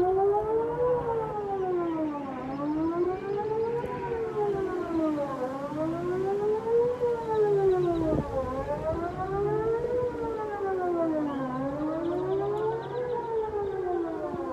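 Whelen WPS 2909 electronic outdoor warning siren sounding a test, its tone rising and falling about once every three seconds in a repeating up-and-down wail.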